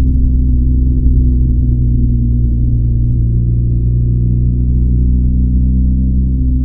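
BMW R1250GS boxer-twin engine on its stock exhaust, running steadily under way as a low hum. Its tones shift slightly about halfway through.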